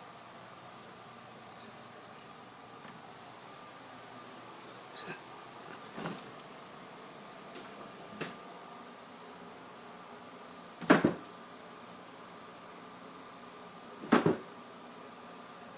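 A cricket's steady, high-pitched trill, breaking off briefly a few times. Several sharp knocks come through it, the loudest two in the second half.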